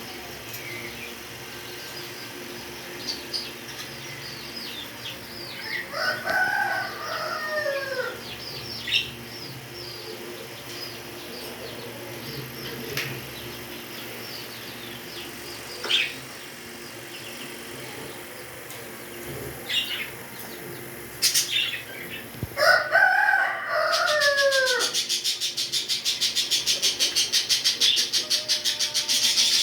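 Pet birds calling: scattered short high chirps, and two long calls that fall in pitch about six and twenty-two seconds in. Near the end comes a loud, fast, even fluttering.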